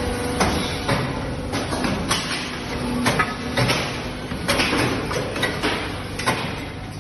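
Casting machinery running with a steady hum, cut by irregular sharp metallic clanks and scrapes, several each second.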